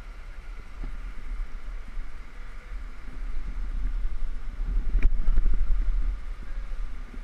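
Wind buffeting a helmet-camera microphone, a low rumble that grows louder through the middle and peaks around five to six seconds in, with a single sharp click about five seconds in.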